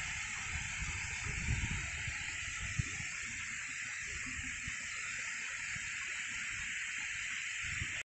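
Waterfall water streaming down a sloping rock face, a steady rushing hiss. Low, uneven wind rumble on the microphone runs under it, with one short click about three seconds in.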